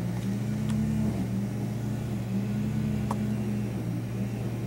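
A steady low room hum, with two faint short clicks: one just under a second in and one about three seconds in.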